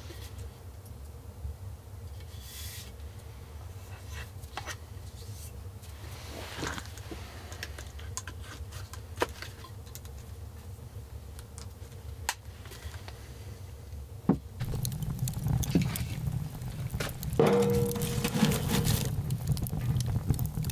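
Small clicks and scrapes of things being handled. About 14 seconds in there is a knock, then a wood fire in a stove crackles, louder, with many sharp pops.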